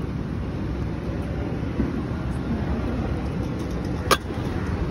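Steady low rumble of street traffic, with one sharp click about four seconds in.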